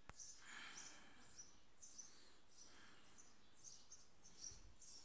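Near silence, with faint high bird chirps repeating about twice a second over a low hiss, and a single click right at the start.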